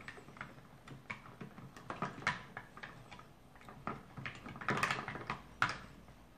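Small hands squishing and scooping Zimpli Kids play slime in a plastic tub: irregular wet squelches and light knocks of plastic, a little louder around the middle and near the end.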